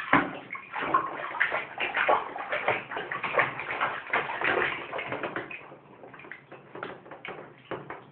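Baby splashing and slapping the bathwater with her hands, a quick irregular run of splashes that thins out after about six seconds.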